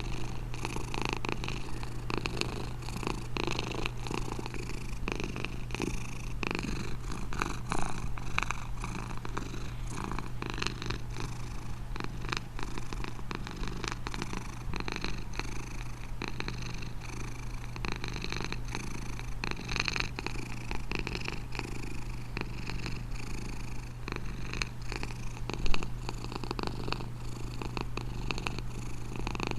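A cat purring steadily and continuously, with two brief louder knocks, one about eight seconds in and a sharper one near the end.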